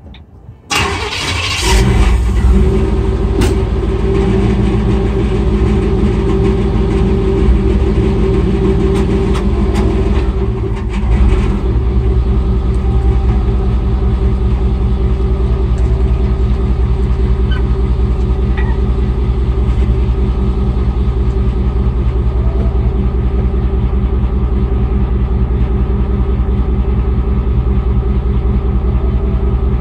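An engine cranks and starts about a second in, then runs steadily with an even, pulsing beat.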